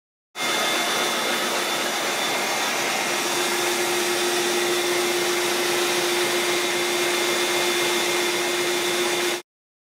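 Shop vac running steadily, supplying the air that drives a wooden reciprocating air engine: a loud, even rush with a high whine. A lower hum joins about three seconds in. The sound starts and cuts off suddenly.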